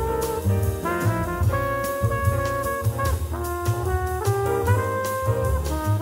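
Small jazz group recording: tenor saxophone and trumpet playing held melody notes together over bass and a drum kit with light cymbals.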